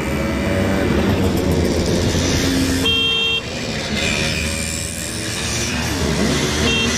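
A column of Simson two-stroke mopeds passing one after another, their small engines buzzing and rising and falling in pitch as each goes by. A horn beeps for about half a second about three seconds in, and briefly again near the end.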